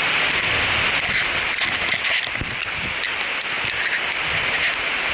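Steady rain falling in a rainforest, an even hiss.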